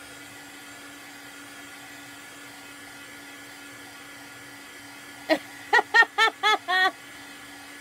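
Handheld heat tool blowing steadily, drying freshly applied chalk paste. About five seconds in, a short run of laughter, five or six quick syllables, sounds over it.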